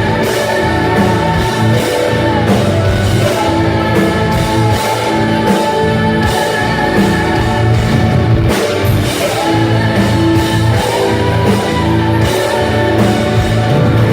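Symphonic metal band playing live: a female lead voice holds long sung notes over distorted guitars, drums and keyboards.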